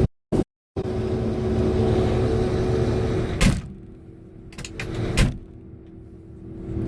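A vehicle engine running steadily. About three and a half seconds in a clunk is heard and the engine sound becomes much quieter and more muffled. More clicks and a second clunk follow about five seconds in, and the louder engine sound returns near the end.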